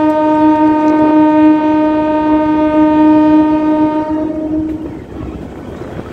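DEMU train's horn sounding one long, steady blast that stops a little over four seconds in, over the running noise of the moving train.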